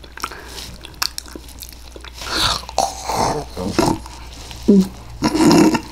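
Close-up wet chewing and lip-smacking of a mouthful of strawberry cake, with a few small clicks in the first two seconds. Short throaty vocal noises come near the end.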